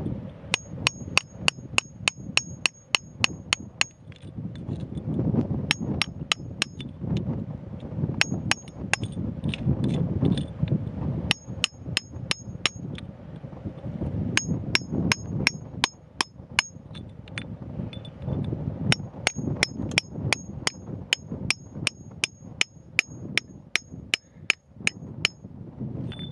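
Hammer blows on a steel chisel driven into rocky ground. The blows come in quick runs of about four a second, each with a high metallic ring, with pauses between runs. Wind rumbles on the microphone underneath.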